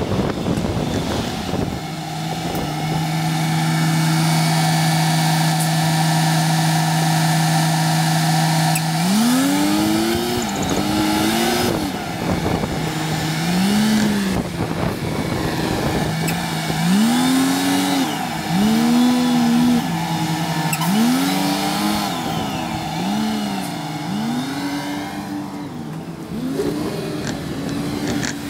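Sped-up road recording of a vehicle engine: a steady hum, then, from about a third of the way in, a run of quick rising-and-falling swoops in engine pitch, one every second or two, as it revs up and drops back again and again, over steady road and wind noise.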